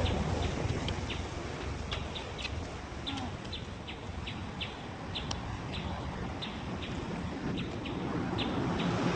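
A bird chirping rapidly and repeatedly, short high notes at an uneven pace of two or three a second, over a steady low rumble of outdoor noise.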